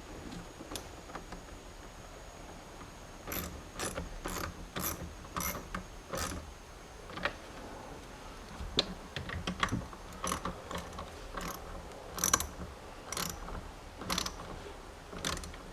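Hand ratchet with a 10mm socket clicking in short runs as 10mm bolts are tightened down.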